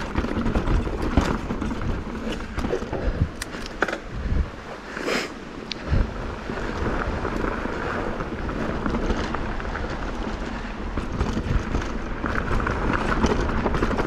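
Mountain bike rolling fast down a dirt and rock trail: tyre noise on the loose surface with constant small clicks and rattles from the bike over bumps, and wind rumbling on the microphone.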